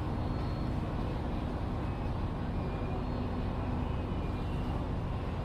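Steady low rumble and hum of a diesel train idling at a station, with faint high tones above it.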